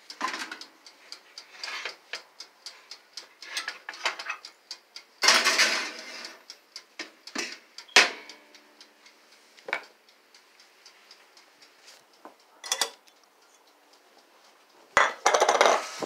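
Kitchen handling noise: a string of light clicks and knocks from a pan and utensils, with a longer scraping clatter about five seconds in, a sharp knock about three seconds later, and a louder clatter near the end.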